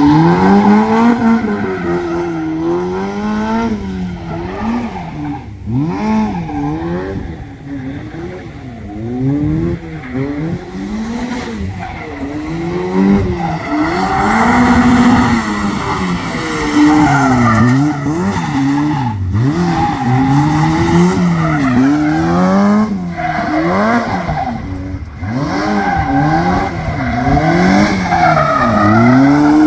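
Seven-style sports car's engine revving up and falling back over and over, a short burst of acceleration and a lift-off every second or two as it is thrown through tight turns, with tyres squealing in places.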